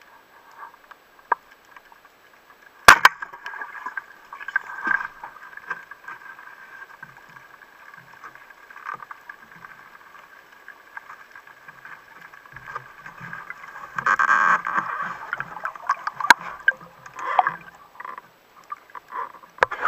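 Mares Viper Pro 110 speargun firing underwater: a single loud, sharp crack about three seconds in. After it comes uneven gurgling and sloshing water with the speared fish on the shaft, a second sharp click later on, and more water noise toward the end.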